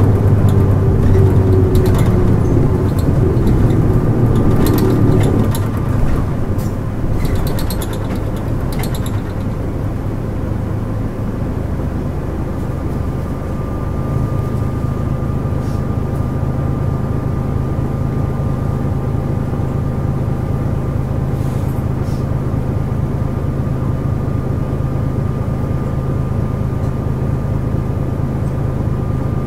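Nissan Diesel KL-JP252NAN city bus running, heard from inside the bus. For the first few seconds the engine is loud and its pitch falls slowly. After about six seconds it drops off and then runs steadily and more quietly.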